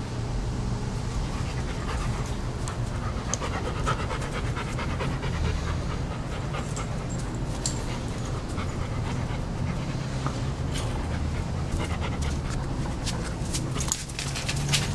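Chesapeake Bay Retriever panting close by, over a steady low hum, with scattered short clicks that come thickest near the end.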